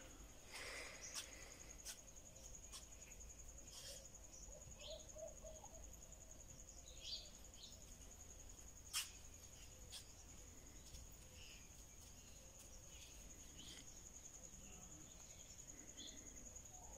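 Faint outdoor ambience: a steady high-pitched insect trill, like a cricket, with a few light clicks scattered through it, the sharpest about nine seconds in.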